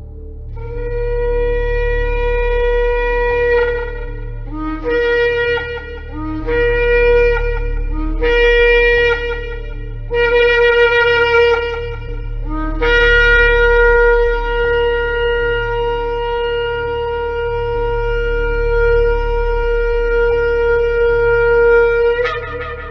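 Shofar (ram's horn) blown in a sequence: one held blast of about three seconds, then four shorter blasts that each start on a lower note and jump up to the main pitch. A long sustained blast of about nine seconds follows, ending in a brief rising flourish.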